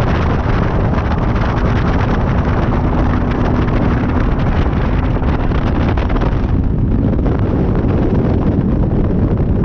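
Bass boat running at speed on open water: a steady outboard engine hum under heavy wind buffeting on the microphone.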